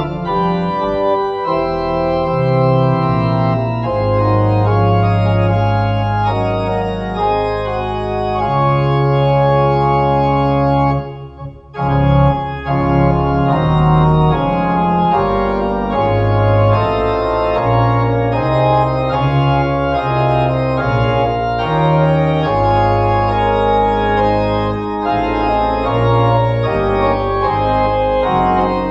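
Organ music: slow, sustained chords that change every second or two, with a brief break in the sound about eleven seconds in.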